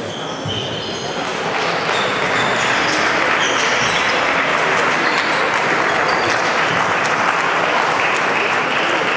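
Applause in a large sports hall, starting about a second and a half in and going on steadily.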